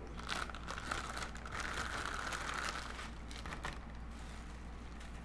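Wig packaging crinkling and rustling in irregular bursts as it is handled and opened.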